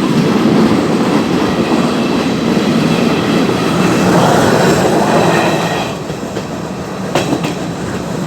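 Train running along the rails with a steady rumble and wheel clatter, easing a little about six seconds in, with a sharp click shortly after.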